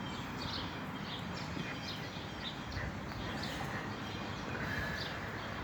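Small birds chirping: many short, high chirps scattered irregularly over a steady outdoor background hiss.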